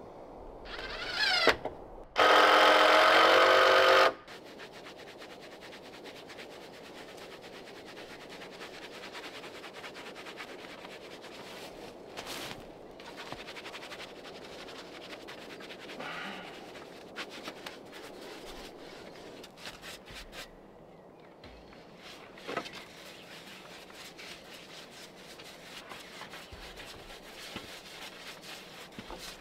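Power drill whining up briefly, then running steadily for about two seconds as it drives into the wooden frame of a chicken coop. Light taps and knocks of handled timber follow.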